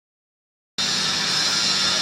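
Pellet fireplace running: a steady whooshing rush with a low hum underneath, starting abruptly about a second in.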